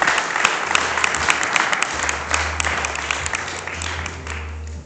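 Audience applauding, with sharp hand claps close to the microphone, thinning out and dying away near the end.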